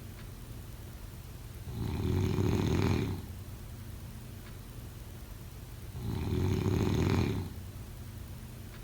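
Snoring: two snores about four seconds apart, each lasting just over a second, quieter in between.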